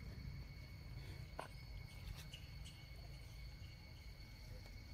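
Faint, steady insect drone: a high whine holding one pitch throughout, over a low rumble, with a few soft clicks.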